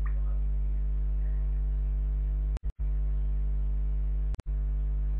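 Steady low electrical mains hum, cutting out to silence for split seconds a little after two and a half seconds in and again about four and a half seconds in.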